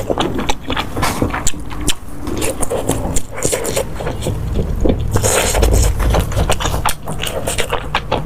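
Close-miked eating sounds: chewing and wet mouth noises, made up of many short, irregular clicks and smacks.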